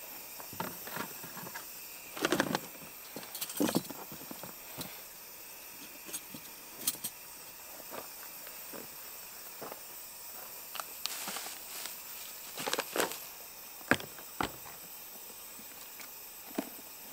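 Metal silverware and camp kitchen gear clinking and rattling as they are rummaged through in a plastic storage tote, in scattered short clicks with a few louder rustling knocks.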